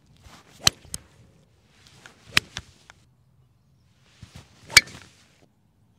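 Three golf shots about two seconds apart: each a swishing whoosh of the club swinging through, with a sharp crack as the clubhead strikes the ball.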